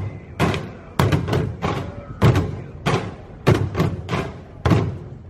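Group drumming on blue plastic wheelie bins (paper-recycling bins) used as drums: a repeating rhythm of sharp strikes, two or three a second.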